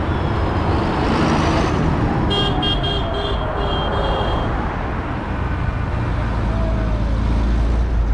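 Tractor engine running steadily with a low rumble while moving along the road. About two seconds in, a quick run of short, high-pitched toots lasts for about two seconds.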